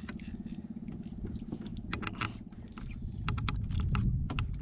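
Fishing reel cranked fast while jigging, its gears giving a rapid, even ticking for about two seconds, then scattered sharp clicks over a low rumble.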